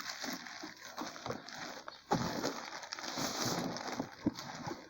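Packaging being handled as a sound mixer is taken out of its box: irregular rustling and crinkling with small knocks, a little louder from about two seconds in.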